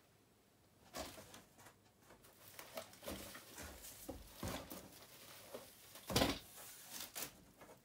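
Rummaging in a cardboard box: items and packaging rustling and knocking against the cardboard, in irregular bursts, with a louder thump about six seconds in.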